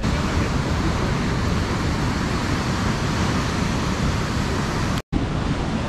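Steady rushing noise of surf and wind at the shore, even and unbroken, cutting out for an instant about five seconds in.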